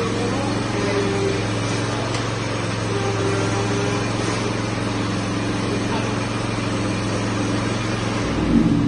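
Petrol engine of a Chikusui Fruity Masao ride-on mower running steadily at idle with the machine standing still. Near the end its pitch rises briefly.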